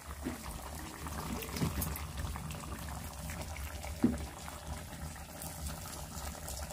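Curry boiling hard in a kadai, bubbling and spluttering steadily over a low rumble. A soft knock sounds about four seconds in.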